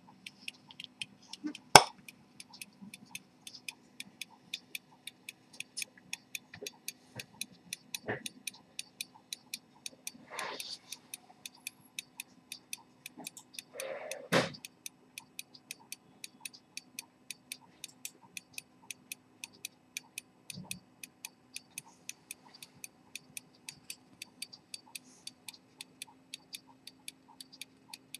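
Cylinder-escapement pocket watch ticking, rapid and even throughout. A sharp click comes about two seconds in, and two short bursts of handling noise come around ten and fourteen seconds in.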